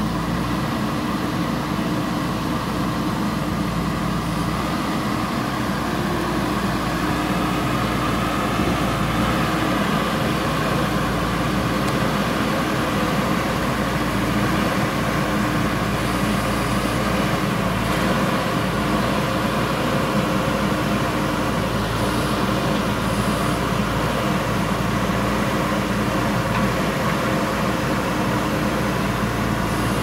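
JCB backhoe loader's diesel engine running steadily under load as the machine works through mud, a continuous low drone with no breaks.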